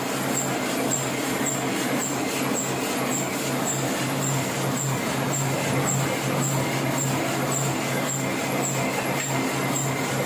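Offset printing press running steadily: a constant machine hum with a light, regular ticking about two to three times a second.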